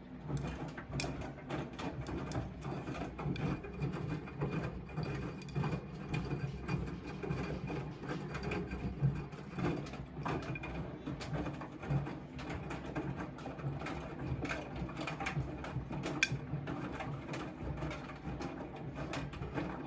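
Siemens washing machine running, its drum turning: a steady low motor hum with frequent irregular clicks and rattles.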